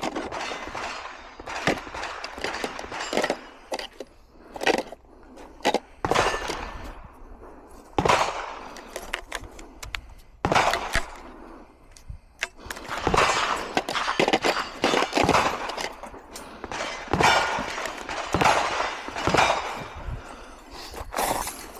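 .22 LR rimfire gunshots, single sharp cracks at irregular intervals, over a busy background of range noise.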